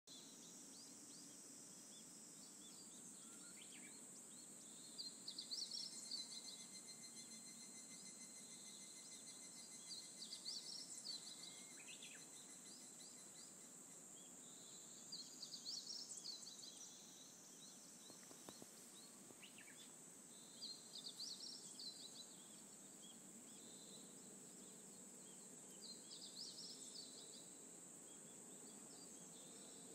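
Faint dawn outdoor sound: a bird repeats a short, high phrase about every five seconds over a steady high-pitched drone.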